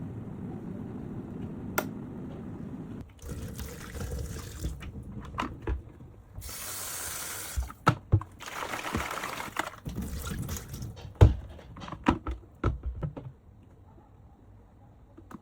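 Water running and splashing as an electric kettle is rinsed, with a series of sharp knocks and clunks from the kettle being handled.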